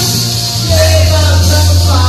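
Karaoke: a man singing into a handheld microphone over a loud backing track with a heavy, held bass note, which drops to a lower note a little under a second in.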